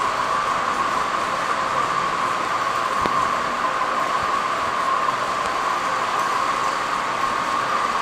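Steady background hiss with a constant mid-pitched whine running through it, unchanging throughout.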